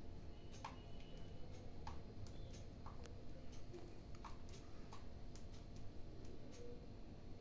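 Cockatiel making soft, irregular beak clicks and taps, about one or two a second.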